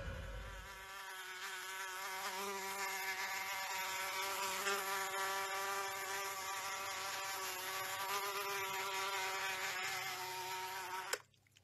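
A housefly's buzz played from a smartphone's speaker by an on-screen fake-fly app: a steady buzz that wavers slightly in pitch and cuts off suddenly near the end.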